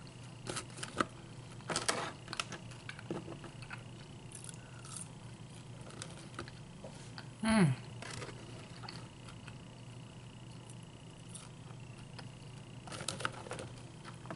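Close-up eating sounds of someone chewing crinkle-cut fries, with scattered small clicks and crunches. About halfway through there is a short voiced "mm" that falls in pitch, the loudest sound.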